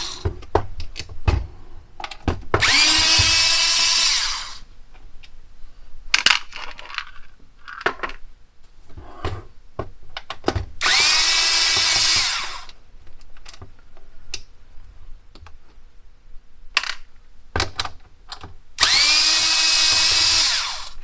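Cordless electric screwdriver whirring in three bursts of a second or two each, the whine rising in pitch as the motor spins up, as it backs Phillips screws out of the plastic bottom cover of a Kodak Carousel 5200 slide projector. Light clicks and taps of the bit, screws and handling come between the bursts.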